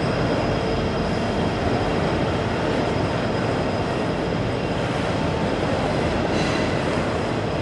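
Double-stack intermodal freight train rolling past: a steady rumble and clatter of the container well cars' wheels on the rails.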